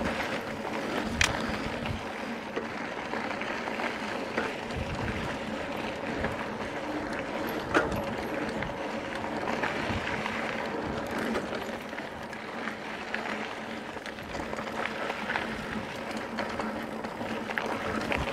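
Mountain bike rolling over a dirt trail, heard from a helmet or bike camera: a steady noise of tyres on dirt, with scattered clicks and knocks from the bike over bumps, the sharpest about eight seconds in.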